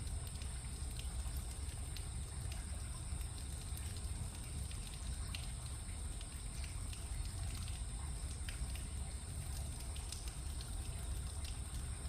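Steady outdoor background: a low rumble with a constant high-pitched whine and scattered faint ticks, and no thunder.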